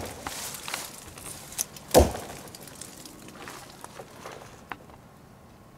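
A heavy rock struck hard against a tree trunk as a wood knock: one loud knock about two seconds in, with the tail of another right at the start. Fainter taps and rustles follow.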